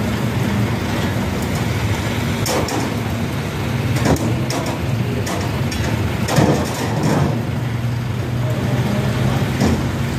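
Vehicle engines running steadily in heavy rain, with a low even hum under the hiss of the rain. A few sharp taps come at scattered moments.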